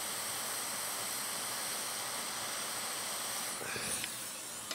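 Hot air rework station blowing a steady hiss onto a MacBook logic board while a cracked capacitor is desoldered and lifted off.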